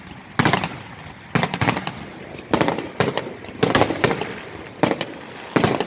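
Fireworks salute bursting in a steady series, about one volley a second, each a quick cluster of sharp cracks with a fading echo.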